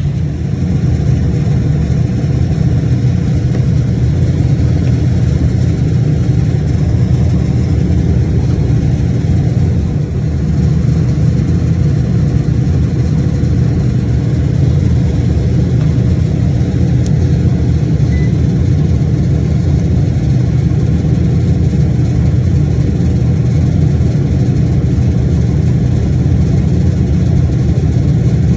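Refrigeration condensing unit running, with a steady, even low hum from its compressor and fan.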